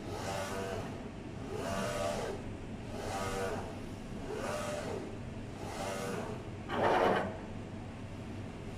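UV6090 flatbed UV printer's print-head carriage sweeping back and forth while printing on golf balls. Each pass is a rising-then-falling motor whine, about one pass every one and a half seconds. About seven seconds in comes one louder, rushing sweep, after which only a steady low hum is left.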